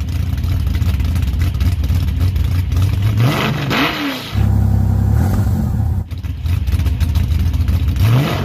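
Mazda B3000 pickup's 3.0-litre V6 running loudly through an open exhaust. It idles steadily, is revved up and back down once about three seconds in, and starts another rev near the end.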